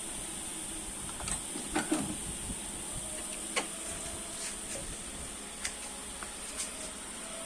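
A steady high-pitched hiss with scattered light clicks and knocks, the loudest around two seconds in.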